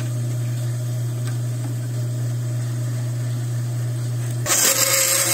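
Benchtop bandsaw running with a steady low hum; about four and a half seconds in, the blade starts cutting into a hardened plastic pipe with a sudden loud, noisy cut.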